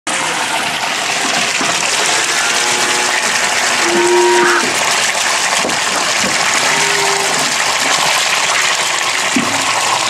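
Milk gushing from the spout of an Urban mobile calf-milk feeder into a plastic bucket: a steady splashing rush as the bucket fills and the milk foams up. Calves give a few short calls in the background.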